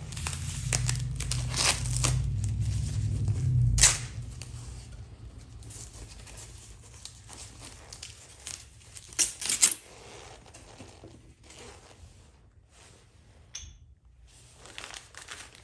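Unpacking a box of small parts: packaging rustling and tearing, with light clinks of small metal hardware. Loudest in the first four seconds, with a short louder flurry near ten seconds.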